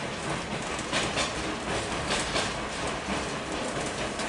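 Excursion passenger train rolling along the track, its wheels clicking irregularly over rail joints over a steady rushing noise.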